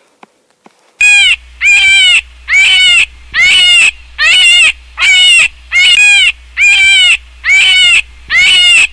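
A domestic animal calling over and over at an even pace, about ten calls starting a second in, each about half a second long and all alike.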